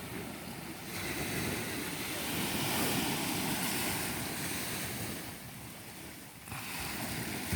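Ocean surf washing onto the beach, swelling about a second in and easing back near the end, with wind on the microphone.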